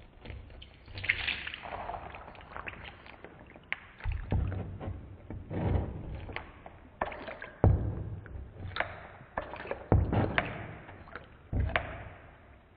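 A blade pressed down through a water-and-slime-filled Mashems squishy figure: wet squelching and sloshing as the liquid squirts out, in several uneven pushes with a few sharp clicks.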